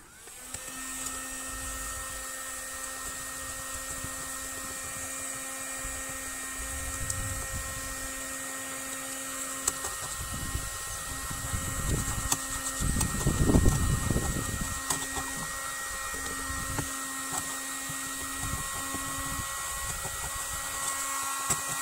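Black+Decker electric heat gun running on medium heat: a steady motor whine over a rush of blown air, with scattered clicks and scrapes of a scraper lifting old stickers off the hull. A louder low rumble comes about thirteen seconds in.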